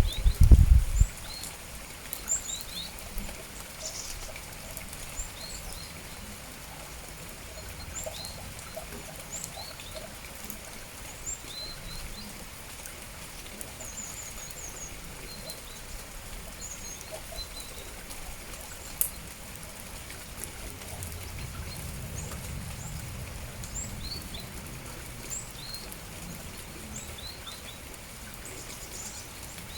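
Small birds chirping, short high calls scattered throughout, over the steady hiss of falling rain. A loud low rumble in the first second, and a softer one from about twenty-one to twenty-five seconds in.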